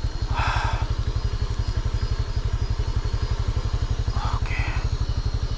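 Motorcycle engine running steadily at low revs with an even, fast throb. Two short hissing sounds come through, about half a second in and again around four seconds in.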